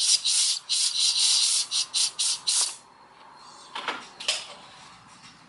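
Compressed-air blow gun hissing in a run of short blasts into a brake caliper's fluid inlet, pushing the piston back out of its bore. The blasts stop about three seconds in, followed by two short clicks.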